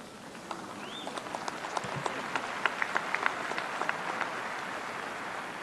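Audience applauding, the clapping building slightly and then dying away near the end.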